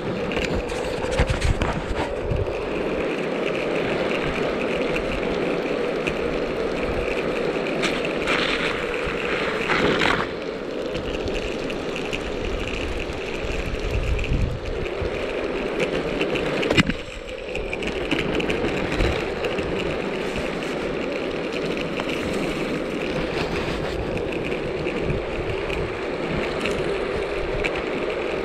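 Mountainboard's air-filled tyres rolling over rough asphalt, a steady rumble that dips briefly about seventeen seconds in.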